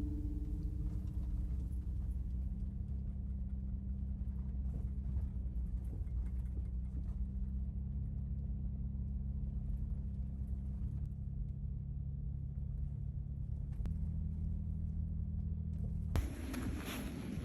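Steady low rumble of a vehicle running, with a faint even hum. About sixteen seconds in it cuts to a loud hiss of wind on the microphone.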